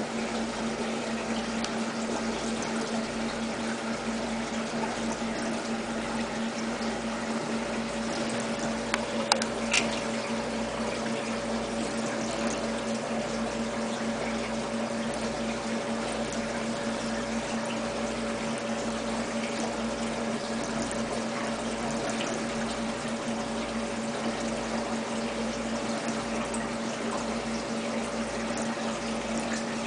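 Steady hum of a small water pump with water running, a low even pulsing underneath, and a couple of faint clicks about nine seconds in.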